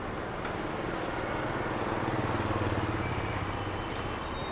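Street traffic: a vehicle engine hums as it passes close, loudest a little past halfway, over the general traffic noise.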